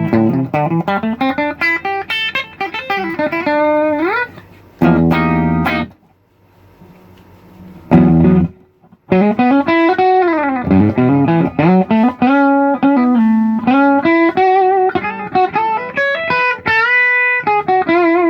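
Electric guitar played through its bridge humbucker pickup: quick runs of single notes that glide up and down in pitch, with a struck chord about five seconds in, a short quiet gap, another chord, then more fast gliding runs.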